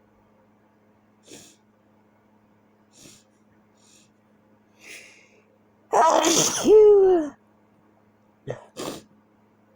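A person sneezing: a few short faint breaths build up to one loud sneeze about six seconds in, with a voiced cry that falls in pitch at its end, followed by two short sharp breaths.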